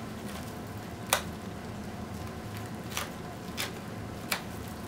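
Scissors cutting through a duct tape dummy, four sharp snips: one about a second in, then three close together near the end.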